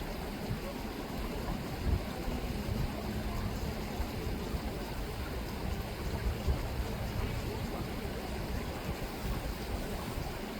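River water rippling, a steady even noise.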